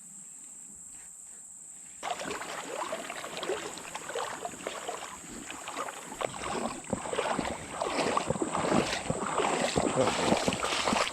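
Footsteps over river rocks and shallow water, a dense run of crunching and splashing that begins suddenly about two seconds in and grows louder toward the end.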